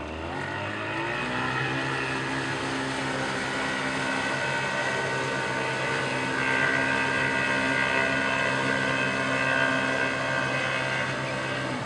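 Small outboard motor revving up in the first second, then running steadily under heavy load, a little louder from about halfway. The boat is pushing bow-high with the manual trim pin in its highest position, and it fails to get onto the plane.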